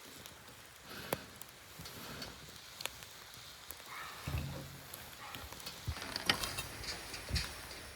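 Wood campfire burning with a soft steady hiss and scattered sharp crackles and pops, plus a dull knock about halfway through.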